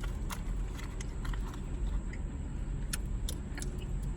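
Close-up chewing of chewy Hi-Chew candies, with scattered small clicks and crinkles, over a steady low rumble.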